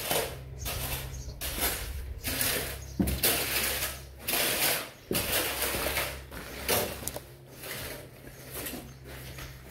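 Wet concrete being scraped and pulled across a reinforced floor slab with a long-handled tool, a rough gritty scrape repeated about once a second, over a steady low hum.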